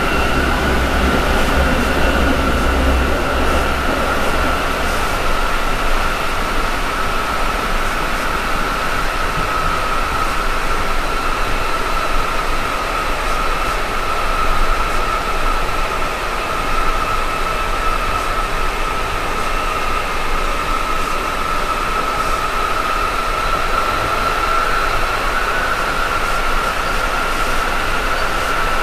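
Berlin U-Bahn Type G train running, heard from inside the carriage: steady running noise with a steady high-pitched whine over it. A low hum drops away about five seconds in.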